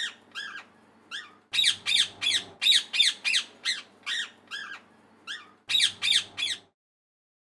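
Parrot squawking: runs of short, harsh, loud calls, about three a second, with brief pauses between runs. The calls stop about a second before the end.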